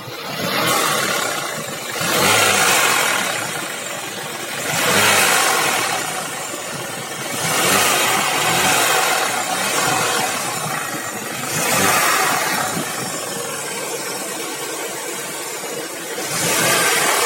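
Volkswagen Golf Mk4 engine running with its air-conditioning compressor knocking, the sound swelling louder every two to three seconds.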